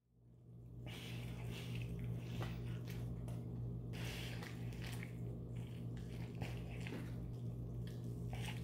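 A man biting into and chewing a cheeseburger up close: soft, wet, irregular mouth sounds over a steady low hum.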